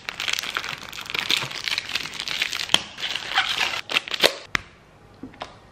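Plastic packaging of sliced cheese crinkling and crackling as it is handled and pulled open, with a few sharp clicks about three and four seconds in. It goes quieter near the end.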